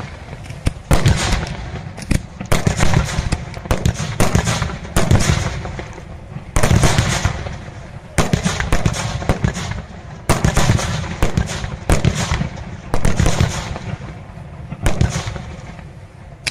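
Aerial firework shells bursting in a display, a sharp bang roughly every one to two seconds, each trailing off before the next.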